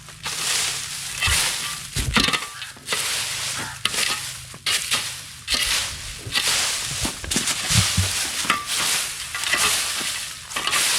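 Dry cowpea stalks and leaves crunching and rustling as they are gathered up by hand, in repeated swishing surges with a few low thumps.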